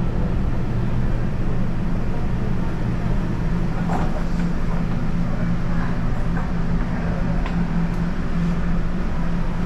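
Steady roar of a commercial gas wok range and its exhaust hood running, with a low, even hum underneath. One faint knock about four seconds in.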